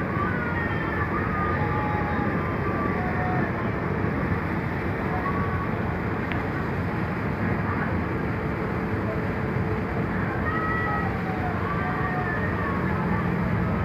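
Steady rumble and rush of a passenger ferry's engines and the water along its hull, with faint snatches of voices now and then.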